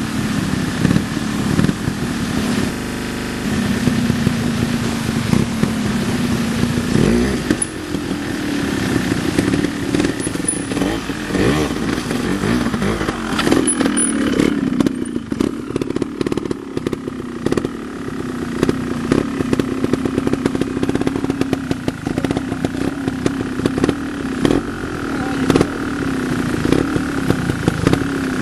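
Vintage trial motorcycle engine running, its speed rising and falling as the throttle is worked, with scattered clicks and clatter.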